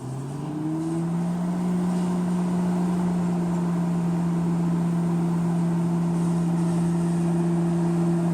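Microwave oven starting up at full power: its hum rises in pitch over about the first second, then runs as a steady drone.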